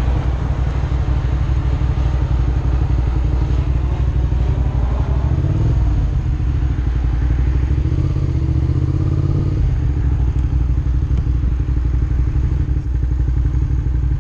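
Motorcycle engine running while being ridden, its pitch rising and falling with the throttle, under a steady low rumble of wind on the rider-mounted microphone.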